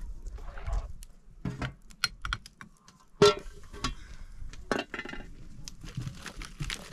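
A run of light clinks and knocks from objects being handled, with one sharp, louder knock about three seconds in.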